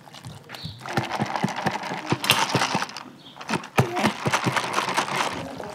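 Wire whisk beating dried baobab pulp and water in a plastic jug: a rapid clattering and rattling of the wires against the jug. It starts about a second in and pauses briefly about halfway through.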